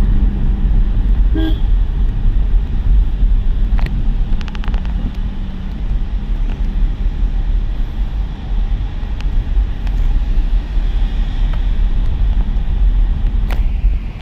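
A car on the move, with a steady low rumble from the engine and road. There is a brief horn toot about a second and a half in.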